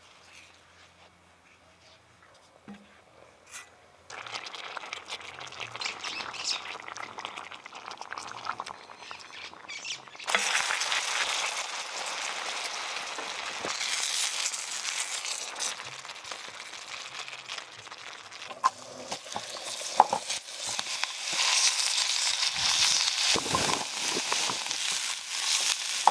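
Mushroom sauce frying and sizzling in a pan while a spatula stirs it, with a few clicks and knocks of the spatula against the pan. It is almost quiet at first; the sizzle starts about four seconds in and gets louder about ten seconds in.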